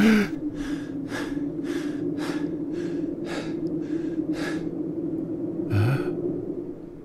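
An enraged old man breathing hard in quick, heavy huffs, about two a second, then a short grunt with a rising pitch near the end. A steady low hum runs underneath.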